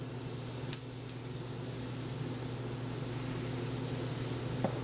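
Pancake batter sizzling as it is poured into a hot frying pan, a steady hiss that slowly grows louder. A light click near the end.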